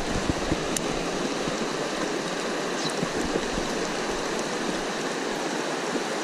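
Shallow rocky stream running over stones, a steady rushing of water.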